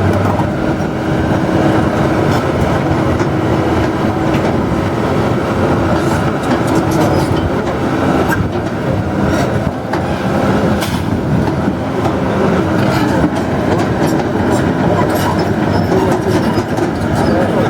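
Diesel engine of a heavy earth-moving machine running steadily under load, with scattered metallic clanks and knocks through it.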